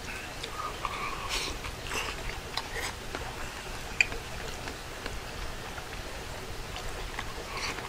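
A person eating udon noodles in broth with chopsticks: chewing and soft mouth noises, with scattered small clicks and one sharp click about four seconds in.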